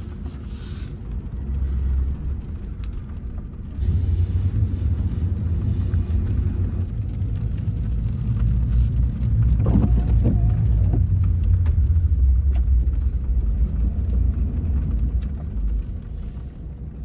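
Chevy Express van being driven: a steady low engine and road rumble that grows louder about four seconds in.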